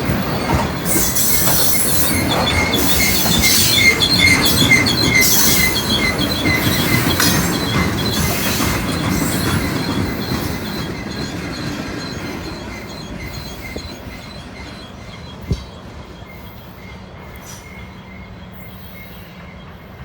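Freight train of loaded rock cars rolling past, the wheels squealing in a pulsing high tone over the rumble and clack of the cars. The sound fades away over the second half as the train moves off, with one sharp knock about fifteen seconds in.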